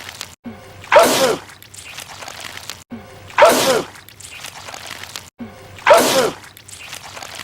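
A man sneezing over and over: the same loud sneeze repeats three times about two and a half seconds apart, each a sharp burst in which the voice falls in pitch, with a brief cut in the sound before each where the clip loops.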